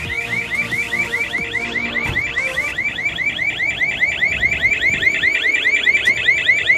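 Welding habitat's pressure alarm sounding: a fast warbling electronic tone, about seven sweeps a second. It is going off because the door was opened and the habitat's inside pressure has dropped below the alarm point of about 25.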